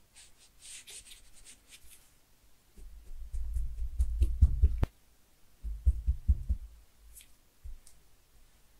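Wire potato masher pressed through kinetic sand. A faint grainy crackle of crumbling sand comes first, then two bursts of dull low thumps as the masher is pushed down, about three and six seconds in.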